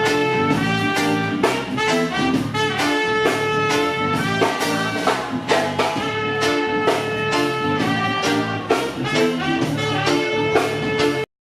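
Instrumental music with brass over a steady beat, an instrumental stretch of a Spanish-language ballad with no singing. It cuts off abruptly near the end.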